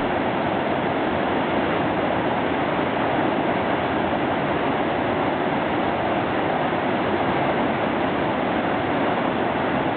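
Steady rushing water, an even noise that stays level with no distinct events.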